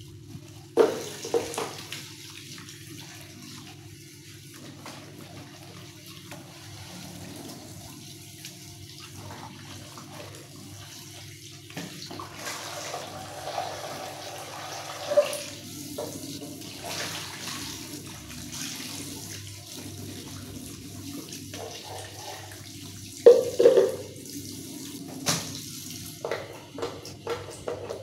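Kitchen tap running into a stainless steel sink as dishes and plastic containers are rinsed, with a few sharp knocks and clatters of dishware against the sink, the loudest about a second in and in the last third.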